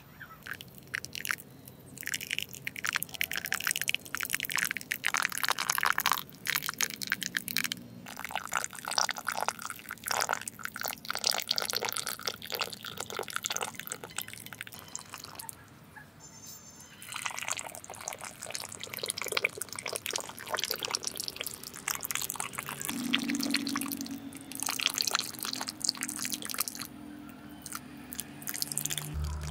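Thin wet cement poured from a small watering can into miniature foundation trenches, splashing, dripping and spattering, with a few short pauses.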